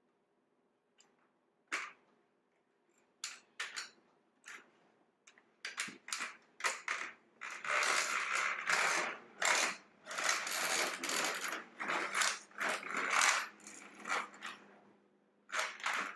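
A folding walker and shuffling feet on a tile floor, in the shuffling gait of a man with Parkinson's. A few sharp clicks at first, then from about eight seconds in a run of rattling, scraping strokes roughly once a second.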